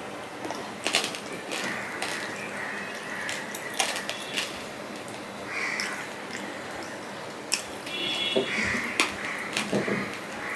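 Close-up eating sounds: wet chewing and lip smacks, with scattered sharp clicks, as rice and fish are eaten by hand from a plate.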